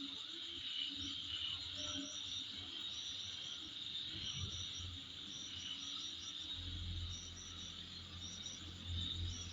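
Insects calling in chorus: a steady high trill overlaid with short groups of quick higher chirps repeating about once a second. A low rumble joins in about two-thirds of the way through.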